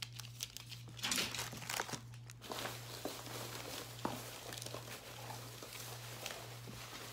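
Plastic candy wrappers and bags crinkling and rustling as packages are handled and set down, with a few short light knocks.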